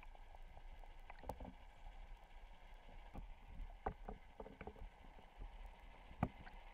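Muffled underwater sound: a low steady hum with scattered knocks and clicks, the sharpest about six seconds in.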